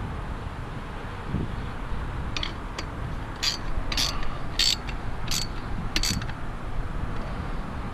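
Ratchet wrench clicking through about seven quick strokes, roughly two a second, while a dish-mount bolt is tightened.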